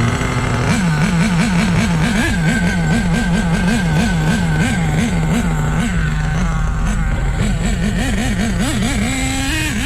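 HPI Savage nitro RC truck's glow engine being blipped on the throttle in quick repeated revs, about three a second. It holds a steady idle for a moment partway through, then blips again. Its low-speed needle has just been opened a quarter turn, and it is running rich ('fat').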